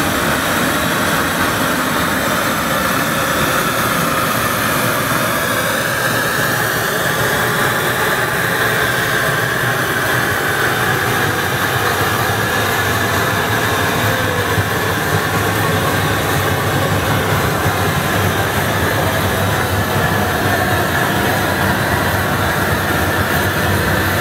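Handheld gas torch burning with a loud, steady hiss as its flame is held on a glass vase turning on a blowpipe.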